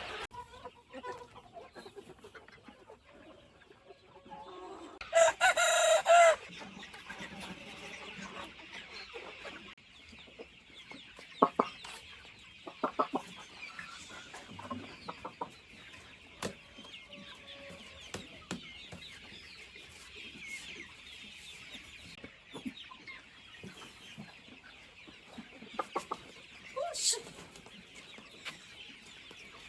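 Free-range chickens clucking, with a rooster crowing loudly once about five seconds in and scattered short clucks after it.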